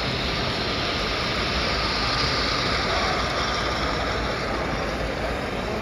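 Model train running past on layout track: a steady mechanical hum and rumble of the locomotive and rolling freight cars.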